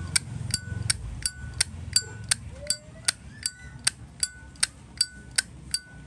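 Brass-lidded Zippo windproof lighter flipped open and snapped shut over and over, about three sharp metallic clicks a second, many with a short bright ring. The lighter is new and never fuelled, and its lid sound has been hand-tuned to be loud and ringing.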